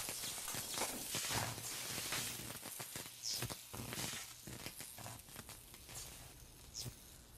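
A crackling hiss scattered with short clicks and a few brief high chirps, fading away towards the end.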